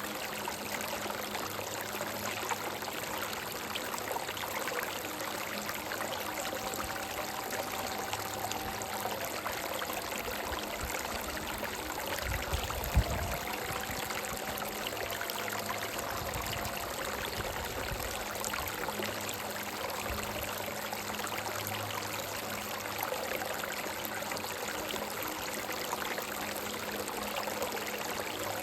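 Stream running over rocks, a steady rush and trickle of water. Faint held notes of a soft background melody come and go through the middle, and a brief low thump sounds about halfway through.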